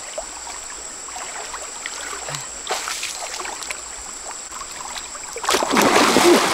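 Stream water sloshing with small splashes as hands grope through a shallow, muddy pool. About five and a half seconds in comes a loud burst of heavy splashing as the wader lunges and scrambles, grabbing after fish in a stone fish trap.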